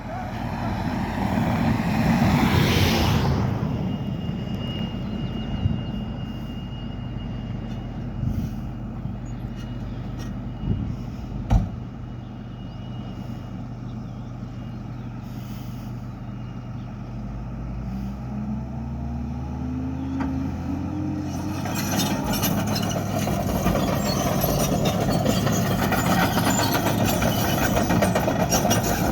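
Diesel engine of a heavy earthmoving machine running steadily, with a single sharp knock partway through. Its pitch rises about two-thirds of the way in, and then a louder, rattling working noise comes in.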